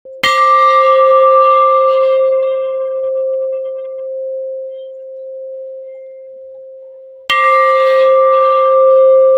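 Large hanging metal gong struck twice, about seven seconds apart, each stroke ringing on in a long, slowly fading hum that wavers in loudness.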